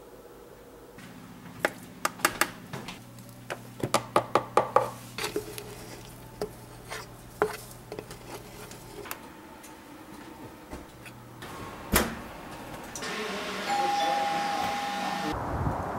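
Sharp clicks and knocks from a plastic peanut butter jar and its lid being handled on a kitchen counter, coming thick and fast for several seconds. There is one loud knock about three quarters of the way through. A short steady tone sounds near the end.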